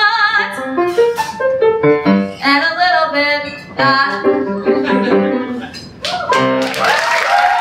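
A woman's solo singing voice with piano accompaniment, holding the closing phrases of a musical-theatre song. Audience applause breaks out near the end as the song finishes.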